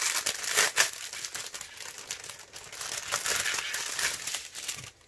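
Clear plastic wrapping crinkling as hands pull it off a bundle of small diamond-painting drill bags, with the loudest crackles about a second in.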